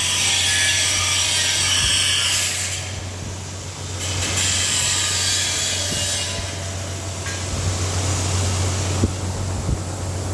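Woodworking in a workshop: a continuous rasping noise like sawing wood over a steady low hum, easing off a little partway through, with two sharp knocks near the end.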